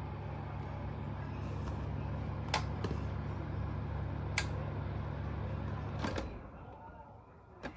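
OHM VF-25 ventilation fan's motor running with a steady hum, with a few sharp clicks; just after a click about six seconds in, the hum dies away as the fan stops.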